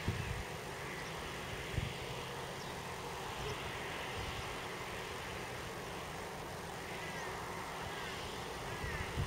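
Valtra T174's 7.4-litre six-cylinder diesel engine running steadily under load, pulling a five-furrow reversible plough through the soil. Near the end, a few short rising-and-falling bird calls sound over it.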